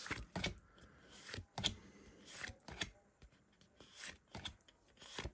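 Pokémon trading cards being flipped through in the hand: soft sliding rustles of card stock with light, irregular clicks of card edges.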